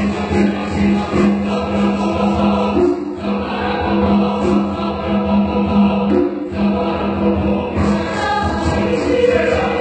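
Chamber choir singing a cappella: a steady low held note under moving, rhythmic upper parts, with brief breaks about three and six and a half seconds in.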